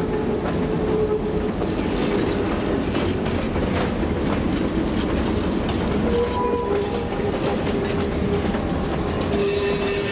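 Open-air passenger cars of a Santa Cruz, Big Trees & Pacific train rolling past, a steady rumble of steel wheels on rail with clicking over the rail joints and a few brief faint squeals.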